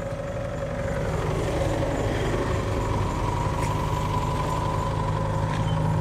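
An engine running steadily, slowly growing louder, with a low hum and a fainter higher whine.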